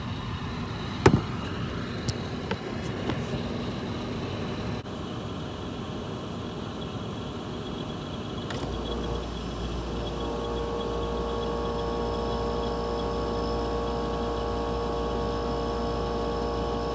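Frigidaire dehumidifier running on its fan, with a sharp knock about a second in as the camera falls over, followed by a few small clicks. About eight and a half seconds in, the compressor starts with a click and a steady low hum that carries on with the fan.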